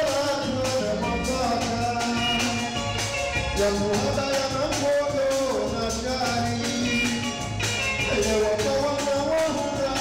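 Live Comorian toirab (taarab) music: a man sings into a microphone over a band with a steady percussion beat and melodic instrumental lines, amplified through the hall's sound system.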